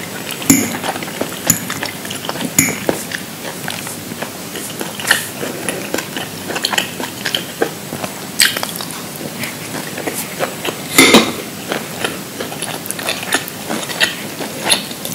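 Close-miked eating: bites and chewing of food mixed with cutlery clicking against dishes. Irregular sharp crunches and clicks, the loudest about eleven seconds in.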